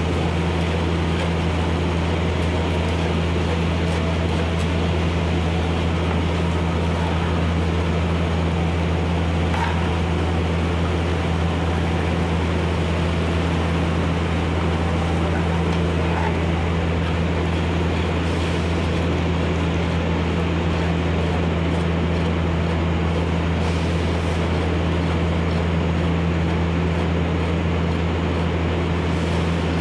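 Steady machine drone with a deep, unchanging hum, as from a running engine or motor.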